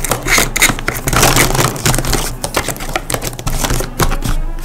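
Plastic barrels of Winsor & Newton ProMarker felt-tip markers clicking and clattering against each other as they are pushed into a cardboard box. A rapid, uneven run of sharp clicks that thins out near the end.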